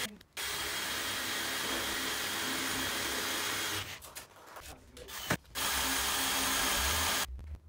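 Cordless drill running against a PVC door frame in two long runs, the first about three and a half seconds, the second about two seconds, with a short click between them.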